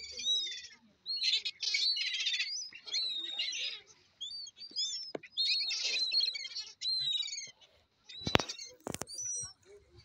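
A flock of gulls keeps up harsh, screechy calling with short high cries. Two sharp knocks come close together near the end.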